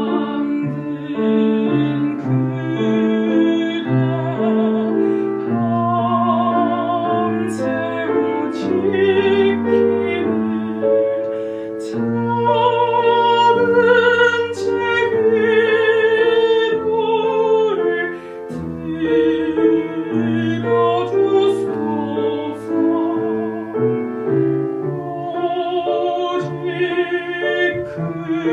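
Background music: a soprano singing a slow classical song with strong vibrato, accompanied by piano.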